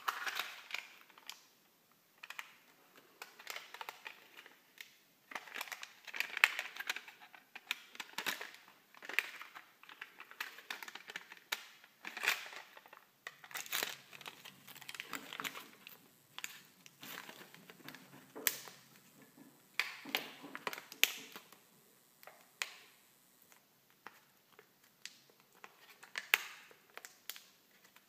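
Foil and plastic packaging crinkling and rustling in irregular bursts, with small sharp clicks and snaps, as hands open and unwrap small packets.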